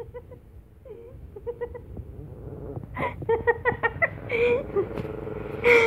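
Small dog giving short, high whining yelps in runs, set off by her own shadow; the calls get louder and come quicker from about three seconds in.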